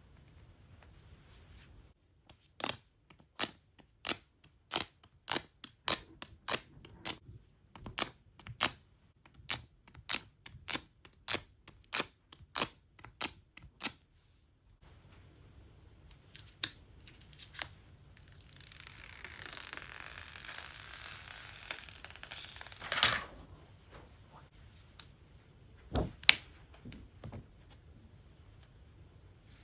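Hard objects being handled during an unboxing: a steady run of about twenty sharp taps or clicks, then a few seconds of rising rustling or scraping that ends in a sharp snap, then a couple of knocks.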